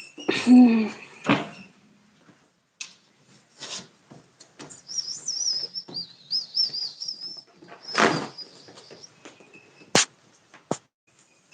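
A bird chirping in a high, wavering trill for a couple of seconds mid-way, among scattered knocks and rustles. Near the start a brief, loud pitched sound.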